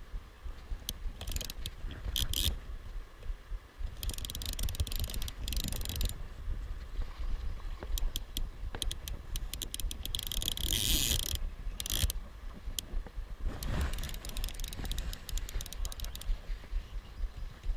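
Metal fishing pincers knocking against a GoPro's housing: irregular bursts of rapid sharp clicks, several times, over a low steady rumble.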